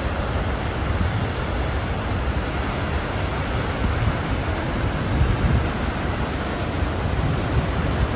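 Goðafoss waterfall's steady rush of falling water, with some wind rumbling on the microphone underneath.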